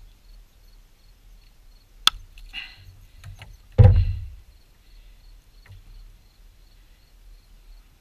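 One sharp snap about two seconds in as side cutters bite through a steel treble hook. This is followed just before halfway by a heavier knock as the cutters and the cut-off lure are set down on a wooden picnic table, with faint handling of cloth and line around it.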